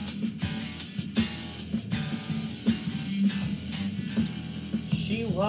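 Solid-body electric guitar strummed and picked in a steady rhythm, chords ringing over low sustained notes.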